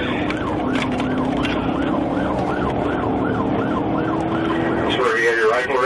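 Police car siren in yelp mode, rising and falling about two to three times a second over the patrol car's engine and road noise. About five seconds in it switches to a faster, louder warble.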